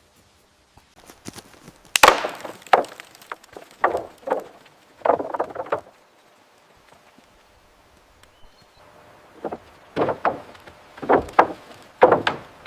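Wood being struck: a series of irregular knocks and thuds in two spells, with a pause of about three seconds between them.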